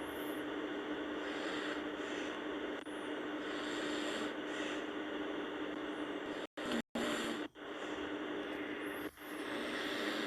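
A sleeping person snoring, a rough breath every two to three seconds over a steady low hum. The sound cuts out twice briefly just past the middle.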